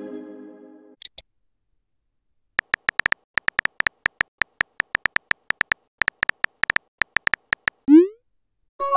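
Chat-app sound effects. A chime fades at the start, then a quick run of sharp synthetic key-tap clicks plays as a message is typed, several a second. A rising swoosh of the message being sent comes about eight seconds in, and a new chime starts near the end.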